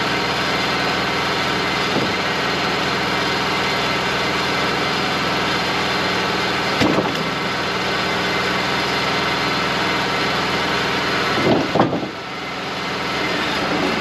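Wood-Mizer LT35 hydraulic portable sawmill running steadily, its engine the main sound, with a brief knock about seven seconds in and a pair of knocks near twelve seconds, after which the level dips briefly and comes back.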